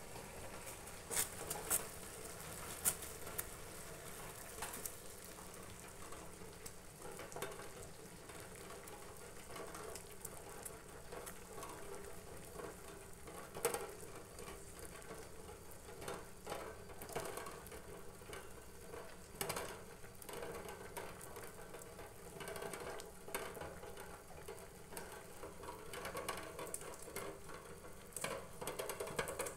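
Noodles simmering in a small steel pot with a faint, steady bubbling, broken by scattered light clicks and taps as paneer cubes are put in. Near the end come a few snips of scissors cutting green chilli over the pot.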